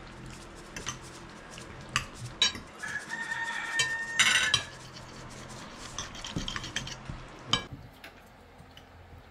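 Knives and forks clinking and scraping on plates during a meal, with a longer scrape about three to four and a half seconds in and scattered clinks around it.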